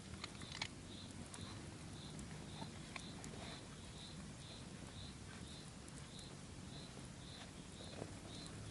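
Campfire crackling with scattered sharp pops and clicks, over an even high chirp that repeats about twice a second.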